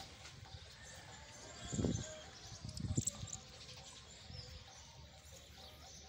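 Faint bird chirping over quiet outdoor ambience, with two brief low thuds about two and three seconds in.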